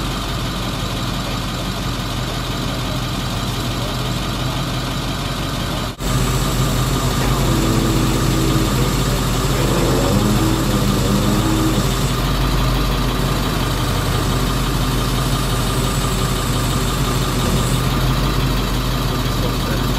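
A vehicle engine idling steadily. About six seconds in the sound cuts briefly and then carries on slightly louder.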